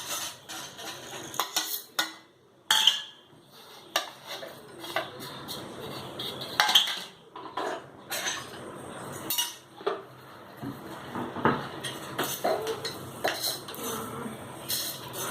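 Spatula scraping and clinking in a pan as coriander seeds are stirred while dry-roasting, in irregular strokes with a few louder knocks.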